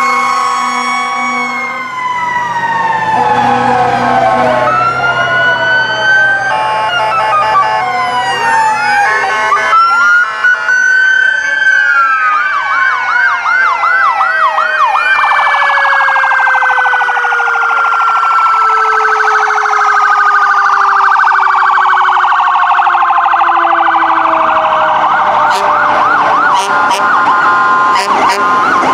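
Several fire-truck and emergency-vehicle sirens sounding over one another as the apparatus pass: wails rising and falling, stretches of fast yelping, and one long tone falling slowly in pitch through the middle.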